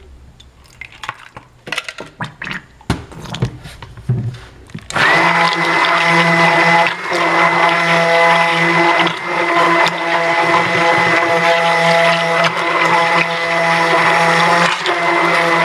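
A few light knocks and clinks of containers being handled, then about five seconds in a handheld stick blender switches on. It runs steadily, blending titanium dioxide into a small pitcher of cold-process soap batter.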